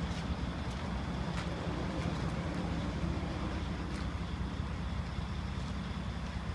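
Heavy diesel truck engine idling steadily: a low, even rumble with a few faint light ticks over it.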